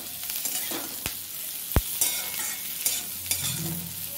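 Chopped vegetables sizzling in butter in a steel wok while a metal spatula stirs them, scraping the pan and clinking against it twice.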